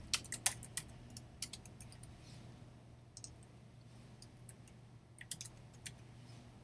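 Computer keyboard being typed on: scattered key clicks in short irregular runs with pauses between them.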